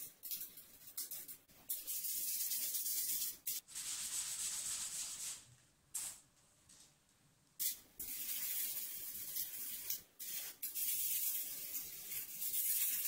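A steel telephone base plate being scrubbed with an abrasive sanding sponge and sprayed with WD-40 from an aerosol can. The sound is an even hissing scrub in several stretches of one to two and a half seconds each, broken by short pauses.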